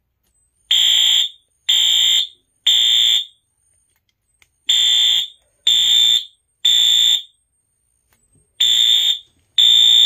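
Wheelock AS fire alarm horn strobe, running on three 9-volt batteries in series, sounding its loud buzzing horn in the temporal-3 evacuation pattern. It gives three short blasts, a pause, then three more, repeating. It starts about a second in, as soon as the circuit is completed.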